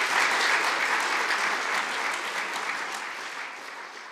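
Audience applauding, the clapping fading away.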